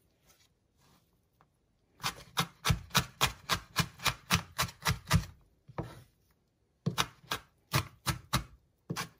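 Kitchen knife mincing green peppers on a wooden cutting board: a quick, even run of chopping strokes, about three to four a second. The strokes start about two seconds in, stop briefly past the middle, then resume.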